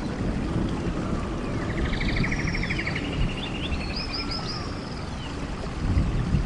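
Steady rush of a waterfall with rainforest birds calling over it: a rapid pulsed trill, heard twice, and repeated clusters of short, high, falling whistled notes.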